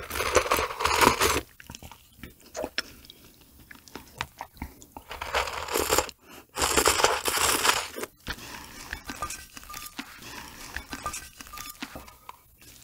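Loud slurping as liquid and raw octopus eggs are sucked straight off a flat plate: a long slurp at the start and another, longer one from about five to eight seconds in, with quieter mouth and swallowing sounds between and after.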